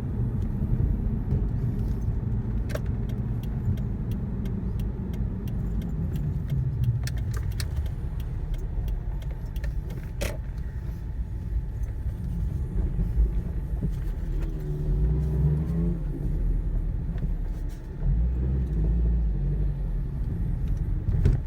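Subaru WRX STI (VAB) driving, its turbocharged flat-four engine and road noise making a steady low rumble, with scattered light clicks and rattles. About two-thirds of the way through, the engine note briefly comes through more clearly.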